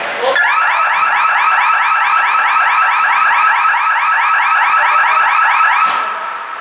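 Arena signal horn sounding a loud electronic warble: a rapid train of rising chirps, about five a second, for roughly five and a half seconds, then cutting off suddenly.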